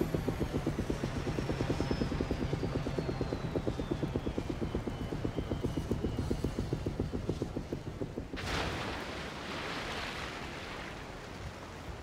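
Helicopter rotor chopping rapidly with a slowly falling whine, not sounding the way a helicopter should. About eight seconds in the chop stops and a sudden rushing burst of noise takes over, then fades.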